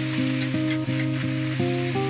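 Kangkung (water spinach) sizzling as it is stir-fried in a wok and tossed with a metal spatula, under background music whose notes change a few times a second and are the loudest sound.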